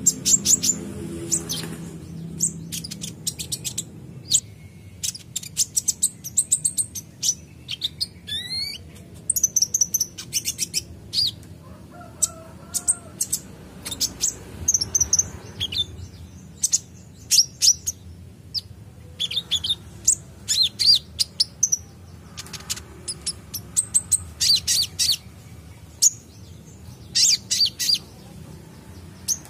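Male Van Hasselt's sunbird (kolibri ninja) singing vigorously: rapid bursts of high, thin chirps and twitters broken by short pauses, with a rising whistled note about eight seconds in.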